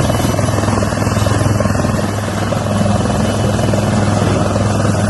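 Helicopter running steadily close by, a constant low drone with fast, even rotor chop.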